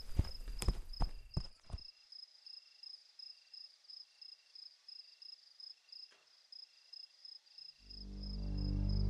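Footsteps for the first couple of seconds, then crickets chirping, about three chirps a second. Near the end a low music drone swells in.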